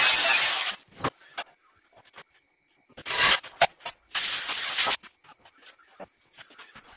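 Arc welder laying tack welds on steel plate: three short bursts of hissing crackle, the last two about a second apart.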